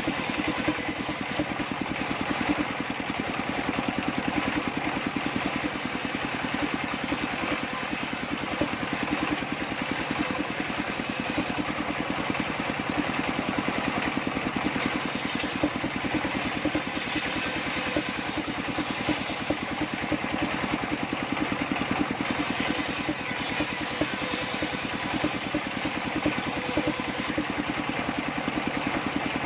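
Engine-driven circular saw table running steadily, its engine chugging at a constant pace.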